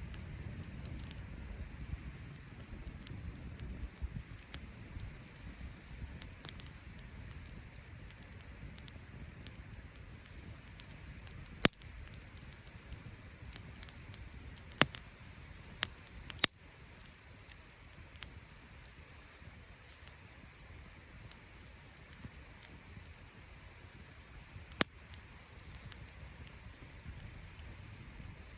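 Wood campfire crackling, with scattered small ticks and a few sharp, loud pops.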